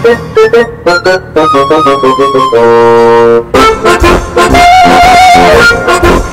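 Music led by brass instruments, loud: quick runs of notes with one long held note about halfway through.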